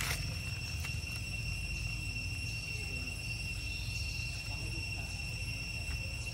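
Steady high-pitched insect drone, one unbroken tone with a fainter higher one above it, over a constant low rumble, with a sharp click right at the start.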